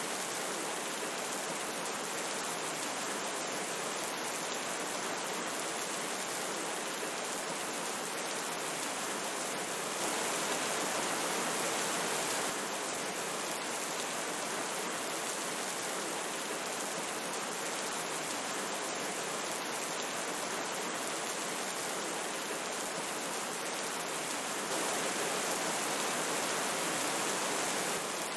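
Steady rush of a flowing river mixed with falling rain, an even, dense hiss. It steps up slightly in level twice, about ten seconds in and again near the end.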